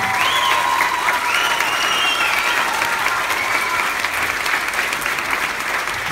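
Audience applauding at the end of a song, with some cheering voices in the first few seconds.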